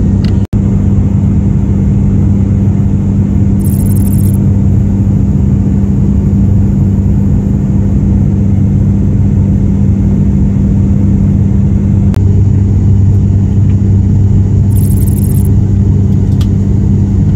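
Cabin drone of an ATR-72 turboprop in cruise: the propellers and engines give a loud, steady rumble with a low, even hum running through it. The sound cuts out for an instant about half a second in.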